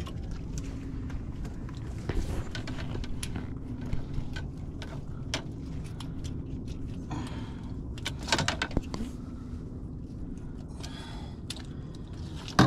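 Hands working a catfish and gear in a landing net on a fiberglass boat deck: scattered clicks, knocks and rattles, with a louder run of knocks about eight seconds in. A steady low hum runs underneath.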